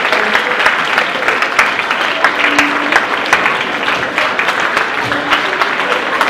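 A large audience of school students applauding, dense and steady clapping throughout.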